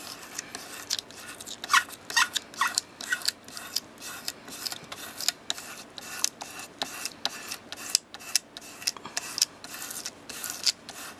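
Fingertips rubbing and scraping dried liquid masking fluid off a coloured paper card, a quick run of short scratchy rubs, about three a second. A few strokes about two seconds in have a squeaky edge.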